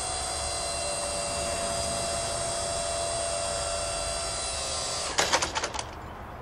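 A steady machine whine with several high tones, which stops about five seconds in with a quick run of loud clunks and rattles.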